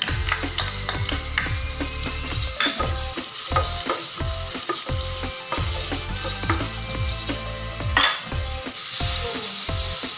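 Minced garlic sizzling in hot butter and oil in a stainless steel pan as it is tipped in and stirred with a spatula. Over the steady frying hiss come repeated short scrapes of the spatula on the pan.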